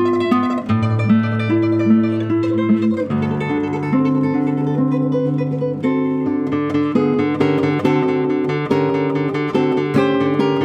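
Solo nylon-string classical guitar playing a fast tremolo melody, quickly repeated high notes over a plucked bass line.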